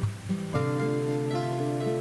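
Background music led by acoustic guitar. A fuller, held chord comes in about half a second in.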